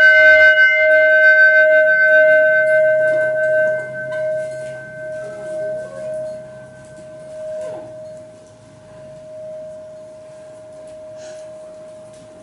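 Large hanging brass temple bell ringing out after a single strike. Its higher overtones die away within a few seconds, while one clear lower note lingers and slowly fades.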